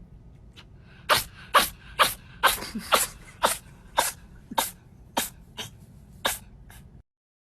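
A pet sneezing over and over, about a dozen short, sharp sneezes roughly two a second, stopping suddenly near the end.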